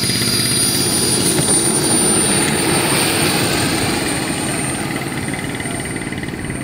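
Twin model turbine jet engines of a large-scale RC Me 262 whining at low power as it lands and rolls out on grass. A high-pitched whine drifts slightly lower over a steady rushing noise, and the sound eases off after about four seconds.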